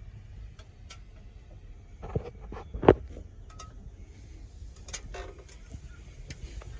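Low steady rumble with scattered knocks and clicks inside a truck cab, the loudest a sharp knock about three seconds in.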